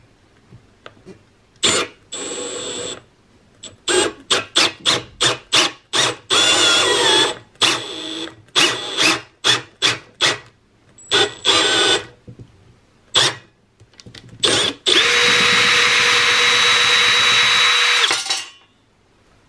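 Electric drill driving a self-tapping threaded insert into an aluminium extrusion, the insert cutting its own thread. The trigger is worked in many short pulses, then the drill runs steadily for about three seconds near the end and stops.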